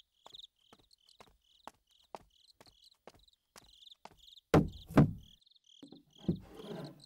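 Crickets chirping steadily, with a wooden chest set down with two heavy thuds about half a second apart, four and a half seconds in, followed by a short scraping rustle near the end.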